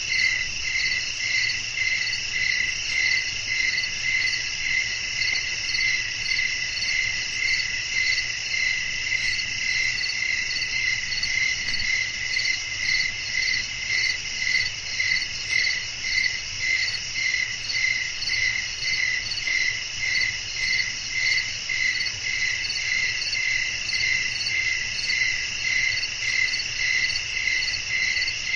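Crickets chirping in a steady night chorus: a continuous high trill with a louder chirp pulsing about twice a second over it.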